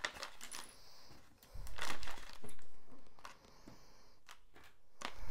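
Rustling and handling noises from a diamond painting canvas and its packaging being moved about: two rustling swishes about one and a half and two and a half seconds in, with a few light taps, then quieter.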